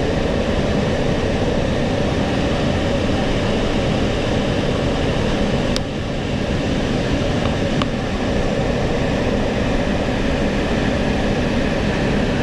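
Loud, steady rush of jet engine and airflow noise from an aircraft in flight during aerial refueling, with a sharp click about six seconds in and a fainter tick near eight seconds.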